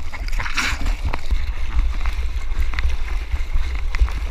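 Seawater sloshing and splashing right against a mouth-mounted GoPro as a bodyboarder paddles, with a steady low rumble of water buffeting the camera housing. A splash comes about half a second in, with scattered drip-like ticks after it.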